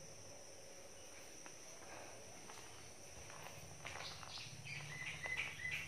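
Faint background ambience with a steady high-pitched whine. From about four seconds in, a run of short, high chirps joins it.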